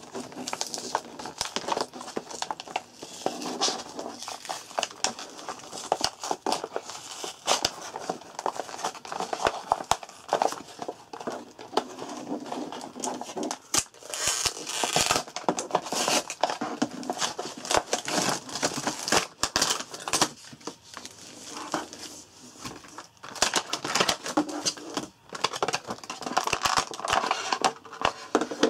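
Clear plastic blister packaging being handled and prised open, crinkling and crackling in dense, irregular bursts.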